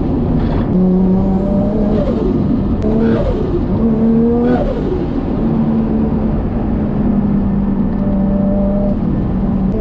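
BMW N54 3.0 L twin-turbo inline-six through a straight-piped exhaust with 335is mufflers, heard at the rear of the car. The revs climb and drop sharply several times in the first half, with turbo whistle at the drops. The engine then holds a steady note until it starts climbing again near the end.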